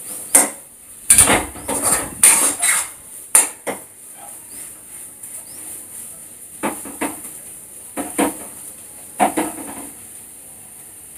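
Steel spoon knocking and scraping against a kadai as thick masala is stirred, in irregular clinks that come thick in the first few seconds and then thin out to a few scattered knocks.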